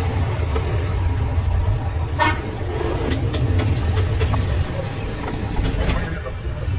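A steady low rumble, with a short pitched tone like a horn about two seconds in and several sharp taps or clicks in the middle.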